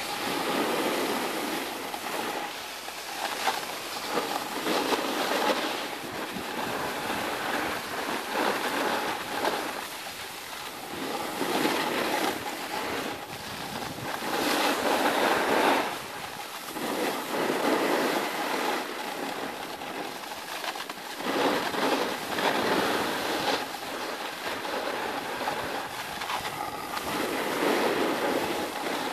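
Snowboard edges scraping and hissing over packed snow through a series of turns, the noise swelling and fading every second or two.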